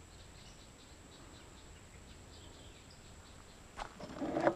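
Faint, scattered bird chirps over a quiet outdoor background. Near the end a click, then a short, louder scraping rattle of a wooden stir stick inside an aluminium drink can.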